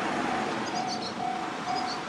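Japanese railway level crossing's electronic warning bell, sounding about twice a second, over the rumble of a passing electric train.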